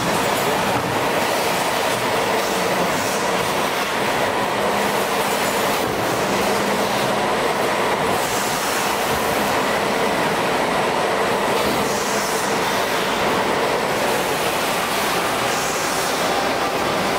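Packaging-line machinery running: conveyors and case-packing machines making a steady, loud rattling din, with a short high hiss every few seconds.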